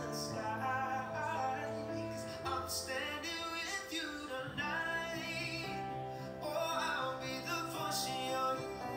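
A male vocalist singing long, wavering notes over a live band with electric bass, played from a television's speakers.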